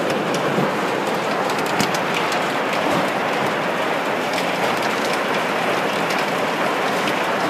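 Heavy hail falling: a dense, steady clatter of countless hailstones hitting the ground, with sharper single hits scattered all through it. Really loud.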